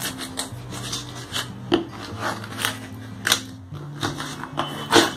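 A small knife cutting and scraping through packing tape on a cardboard box, in several short, sharp strokes at irregular intervals.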